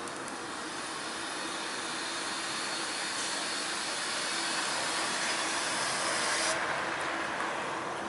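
A battery-electric glass kerbsider garbage truck pulling away: a steady hiss over a low hum, growing louder. The higher hiss cuts off suddenly about six and a half seconds in.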